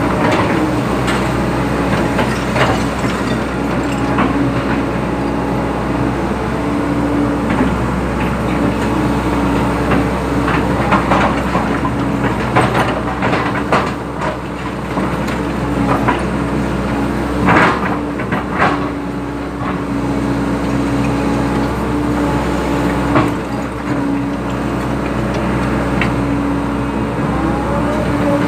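Excavator's diesel engine running steadily under working load, with scattered knocks and clanks while it digs and moves soil.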